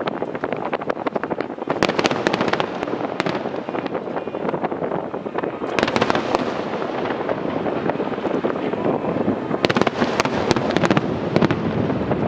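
Aerial fireworks display: a dense, continuous crackle of many small bursts, with thicker clusters of sharp cracks about two, six and ten seconds in.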